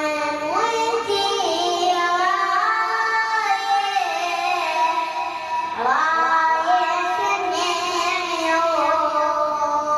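A young boy singing a Shia lament (latmiya) in the nuwaini reciter's style, holding long high notes and sliding up into new ones twice.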